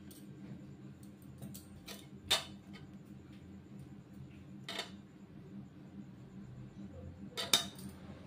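A steel spoon clinking against steel dishes while vegetable filling is spooned into momo wrappers: three sharp clinks a couple of seconds apart, with a few fainter ticks, over a steady low hum.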